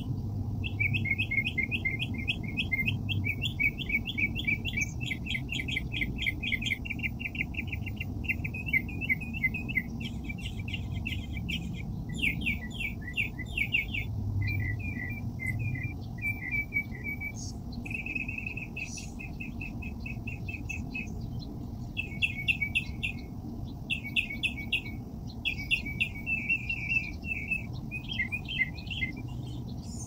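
Small songbird singing in quick trilled phrases of rapidly repeated chirps, each phrase a second or two long with short pauses between, over a steady low rumble.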